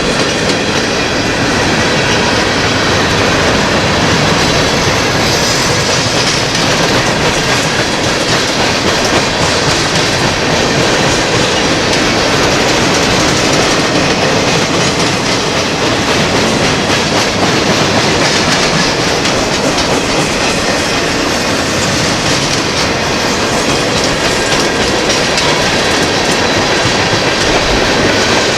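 Freight train cars rolling steadily past, steel wheels clacking over the rail joints.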